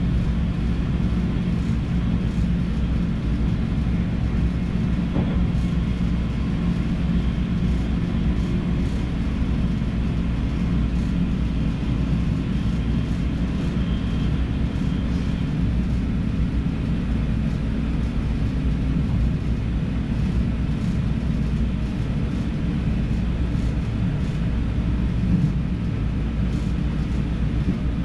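NS DDZ double-deck electric train under way: a steady low rumble of wheels on rail with a constant drive hum, heard from the driver's cab.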